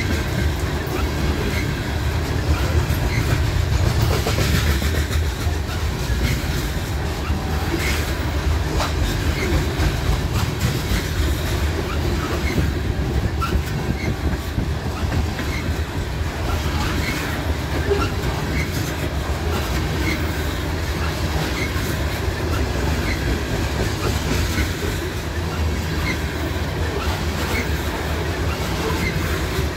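Freight train of steel open-top hopper cars rolling past: a steady low rumble of wheels on rail, with light clicks at a regular beat as the wheels pass over the rail joints.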